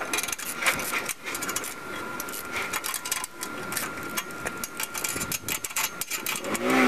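Wrench clicking and clinking on the steel bolts of a trailer jack's mounting bracket as they are tightened, a quick irregular run of metal clicks. Near the end a lawnmower engine starts up and runs.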